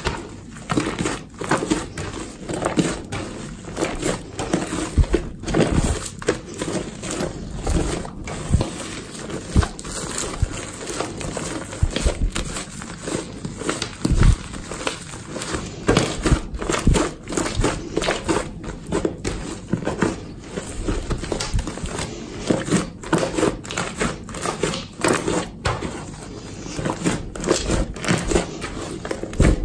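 Hands kneading and squeezing a large mass of pink slime thickened with shaving foam: a continuous stream of wet squishes and irregular small crackles and pops.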